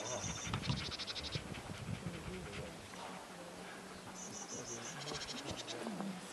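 Grassland insects stridulating: short trains of rapid, high ticking pulses, each lasting under a second. Two trains come near the start and two more just past the middle.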